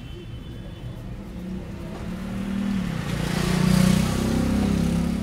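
A motor vehicle's engine passing close by, growing louder to a peak about two-thirds of the way through and then starting to fade.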